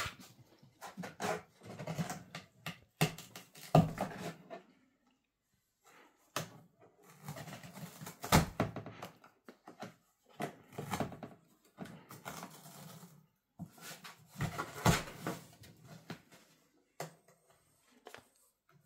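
Cardboard box rustling, scraping and knocking as a cat moves about inside it and others paw at its flaps, in irregular bursts with a few sharp knocks and a short lull about five seconds in.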